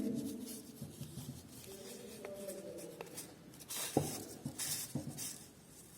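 Quiet room with faint rustling, like paper being handled, and a light tap about four seconds in.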